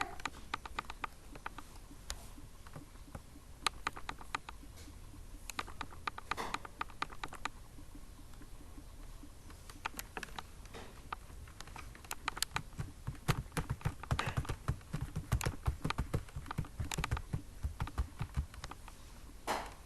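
Typing on a computer keyboard: irregular keystrokes, coming faster and heavier in the second half.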